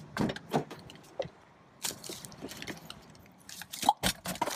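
Handling noises: clicks from a car door handle and latch as the door is opened, then rustling and a pair of sharp knocks about four seconds in as a cardboard box is set down on the car seat.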